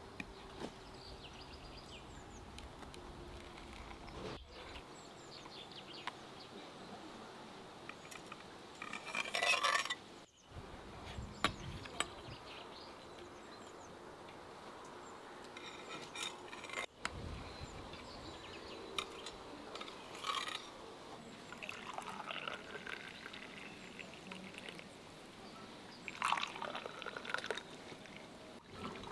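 Cutlery and metal serving plates clinking as a crumb-topped pie is cut with a cake server and served with a spoon, and near the end hot tea pouring from a glass teapot into glass tea cups on a metal tray.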